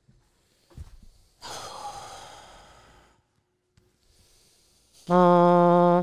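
A person doing a mouth trumpet, buzzing a brass fanfare with the lips: one loud, steady held note beginning about five seconds in. Before it, a soft thump and a breathy rush of air about a second and a half in.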